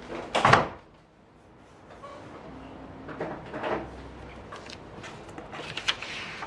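Quick pen strokes on paper during fast sketching: short scratchy swishes, the loudest about half a second in, then several lighter strokes.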